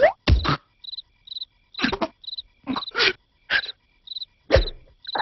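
Crickets chirping steadily in short chirps about twice a second, as the cartoon's background ambience. Over them come several short, sharp cartoon sound effects: a few low thumps and brief vocal squeaks and grunts from the larva characters, one rising in pitch right at the start.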